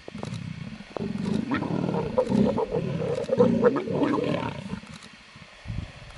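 A pair of leopards growling harshly in rough, pulsing bursts during mating. The sound swells about a second in and fades away just before five seconds in.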